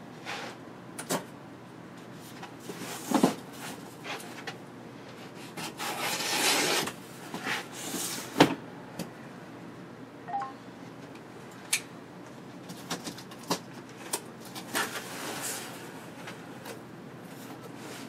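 A cardboard shipping box being handled and opened: scattered knocks and clicks, a longer scraping rustle about six seconds in, and a sharp knock about eight and a half seconds in.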